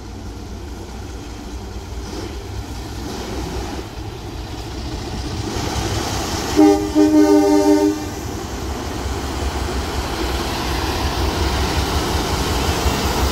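Diesel locomotive 958 and steam locomotive 621 running over a steel rail bridge, the train noise growing louder as they approach. About halfway through, the leading diesel sounds its multi-tone horn: a short toot, then a blast of about a second. Toward the end, steam noise from the steam locomotive builds over the running train.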